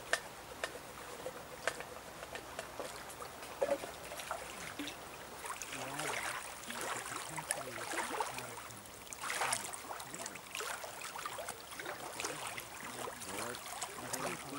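Small waves lapping and trickling against the rocky lakeshore, a steady gurgling with many small splashes.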